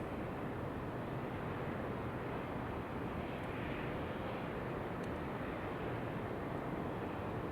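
Steady rushing of wind over a white-noise bed, even throughout, with a faint high tick about five seconds in.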